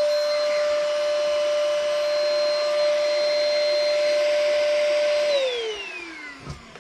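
Zyxrona TV83 cordless stick vacuum's brushless motor running with a steady high whine and airflow hiss, then switched off about five seconds in, its whine falling in pitch as the motor spins down.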